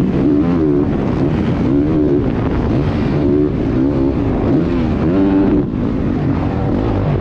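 Motocross bike engine heard from the rider's helmet camera, revving hard and easing off over and over, its pitch rising and falling about once a second as the rider works the throttle around the track.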